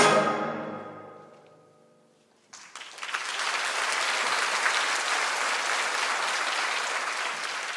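The last chord of a wind band rings away in the hall's reverberation and fades to near silence; about two and a half seconds in, audience applause breaks out and continues steadily.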